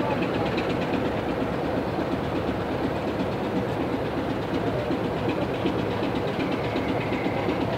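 Class 25 diesel locomotive D7612's Sulzer six-cylinder engine idling steadily while the locomotive stands still.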